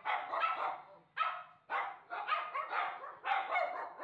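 Lhasa Apso puppies barking, high yaps coming in quick runs with short breaks about a second in and again half a second later.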